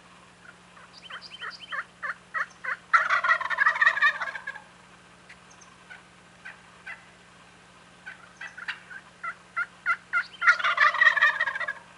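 Wild turkey tom gobbling loudly twice, each gobble a rattling call of about a second and a half. Each gobble comes right after a run of short, evenly spaced yelps.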